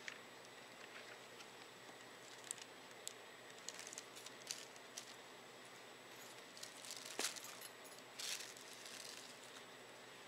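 Handbag being rummaged through as a paper napkin is put away: scattered soft rustles and small clicks and clinks from the bag and its contents, over faint steady background hiss.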